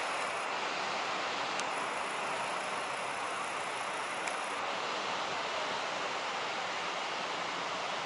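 Steady, even roar of heavy ocean surf breaking below the cliffs.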